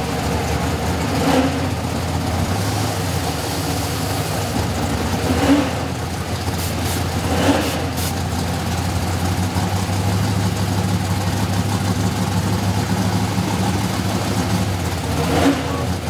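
A donk Chevrolet Caprice's engine idling at the starting line, blipped up in a few short revs. About halfway through come quick bursts of hiss from a nitrous purge.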